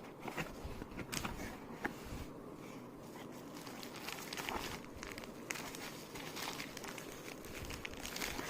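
Packaging crinkling and rustling as it is handled and opened, with scattered light clicks.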